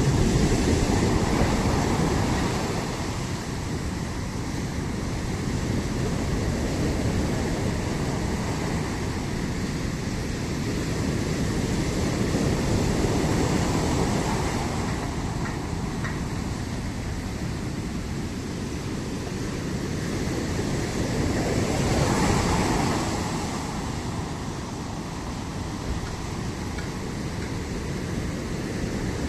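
Ocean surf breaking on a beach: a steady wash of water that swells with each incoming wave, about every ten seconds, and ebbs between them.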